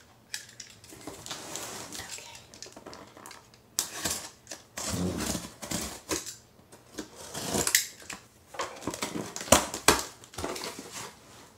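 Utility knife cutting the packing tape on a cardboard box, with irregular scraping and rustling of the cardboard and a few sharp ticks.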